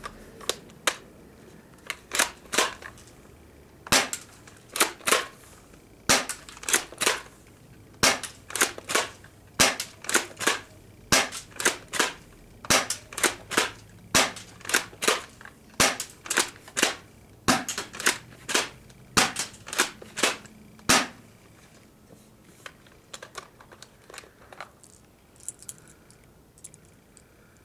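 Pump-action airsoft shotgun being fired and pumped over and over, a quick run of sharp clacks and pops, often in close pairs, for about twenty seconds. Then only a few fainter clicks of handling.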